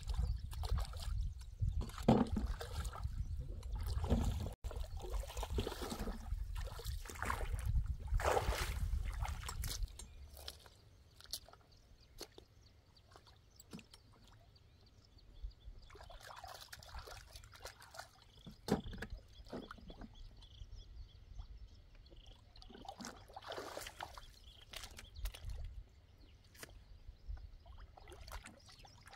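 Water splashing and sloshing in irregular bursts. A low rumble runs underneath for about the first ten seconds, then stops, leaving quieter scattered splashes.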